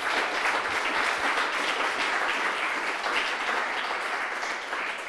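Audience applauding a finished talk: a steady, dense clapping from a room full of people.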